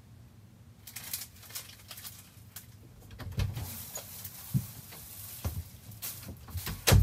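Clicks, rustling and several knocks as an interior door is handled, opened and swung, with the loudest thump near the end, over a steady low hum.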